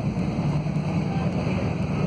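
City bus running along the road, heard from inside the passenger cabin: a steady engine hum with road noise over it.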